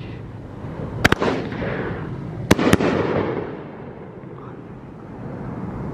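Aerial shell bursts from a 500-gram Warrior Fireworks 'Afternoon Delight' cake: two sharp reports close together about a second in, and two more at about two and a half seconds, each trailing off in a rolling echo.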